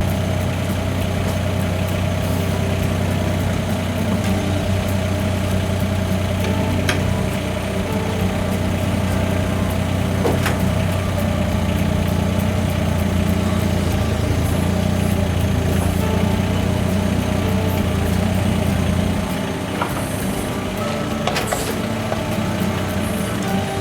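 Yanmar Vio17-1 mini excavator's small diesel engine running steadily while the machine is loaded onto a truck, with a few sharp clicks; the low hum drops a little about nineteen seconds in.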